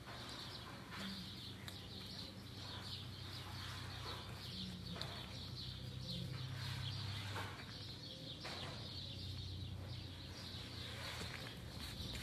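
Outdoor ambience: many birds chirping continuously over a steady low hum, with a few faint knocks.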